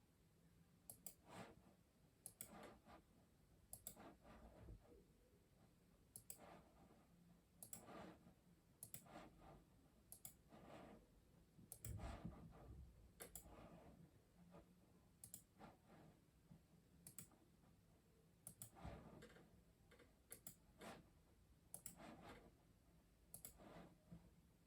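Faint, sparse keystrokes on a custom mechanical keyboard: single clicks at an uneven pace, roughly one a second.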